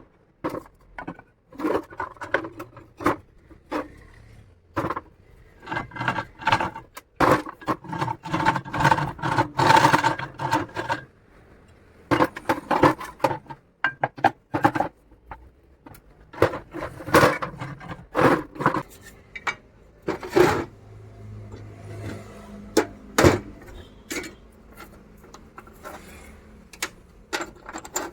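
Metal parts and tools of a manual push grass-cutting machine clanking, knocking and scraping during repair, with irregular sharp clicks and stretches of ringing metal.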